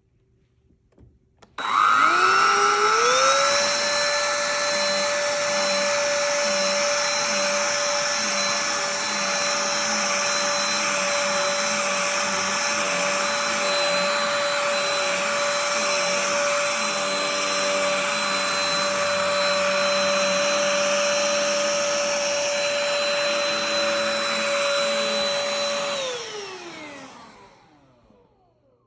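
Black+Decker dustbuster furbuster cordless handheld vacuum switched on: its motor whine rises to a steady pitch, runs steadily for over twenty seconds, then is switched off and falls in pitch as it spins down.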